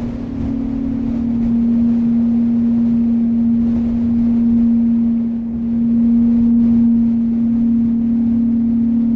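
Recorded mountain wind rumbling and swelling in slow gusts, with a steady low hum held under it.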